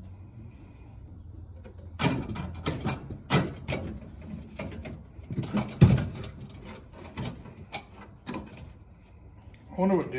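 Irregular sharp clicks and knocks of hand work, starting about two seconds in and going on for about six seconds, with the loudest knock near the middle.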